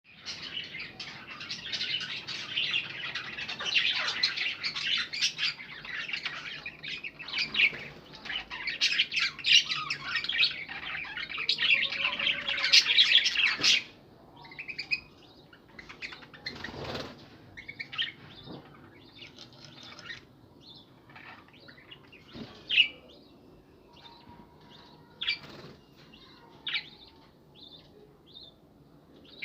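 Budgerigars chattering: a dense, loud run of rapid chirps and warbles that cuts off suddenly about halfway through, after which only occasional single chirps remain.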